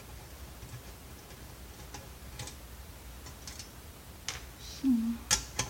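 Small parts and hand tools being handled: scattered light clicks and taps that grow louder toward the end, with a few sharp clicks in the last second. A short low tone sounds just before those sharp clicks, all over a steady low hum.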